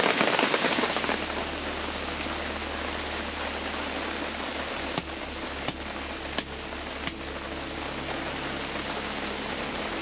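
Steady rain falls throughout. Midway, four sharp knocks come about two-thirds of a second apart as a blade chops firewood.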